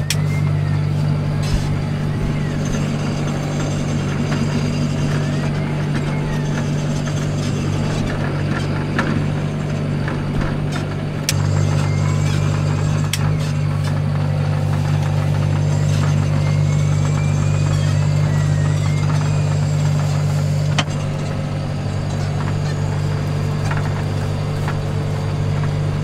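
Farm tractor's diesel engine running steadily under way, heard from inside the cab. Its drone gets a little louder about eleven seconds in, with light clicks and small squeaks over it.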